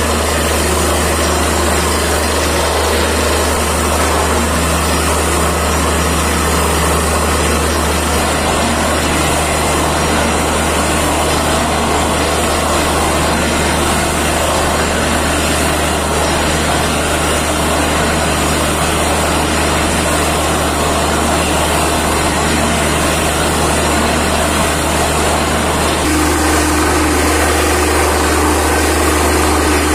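Truck-mounted borewell drilling rig running steadily while drilling, its engine and drill machinery making a loud, continuous din. The low note shifts slightly about eight seconds in, and a higher hum joins near the end as the operator works the control levers.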